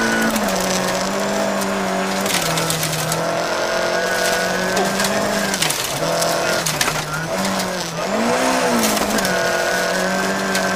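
Volvo 940 rally car's engine at full throttle, heard from inside the cabin, its pitch dropping and climbing again with each upshift through the gears. Gravel clatters against the underbody in sharp ticks throughout.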